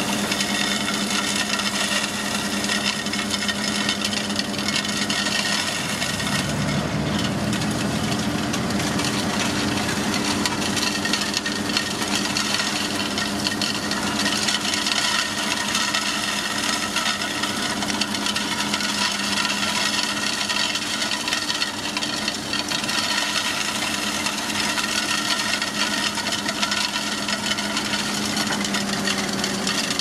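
A semi-trailer end-dump truck's diesel engine running steadily while the tipping bed spills crushed gravel out of the back onto the road, the stone pouring out in a continuous rasping rush.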